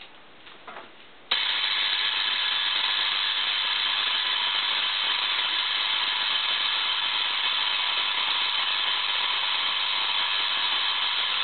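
Spark gap Tesla coil switched on about a second in and running at half power: the spark gap fires with a loud, steady, even buzz that does not change.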